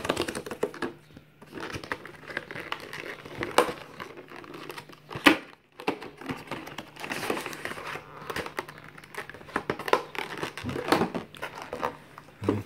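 A cardboard phone box being unpacked by hand: the perforated tear strip is pulled off, then the inner box and clear plastic tray are slid out and handled, giving continuous crinkling with sharp clicks and snaps, the loudest about three and a half and five seconds in.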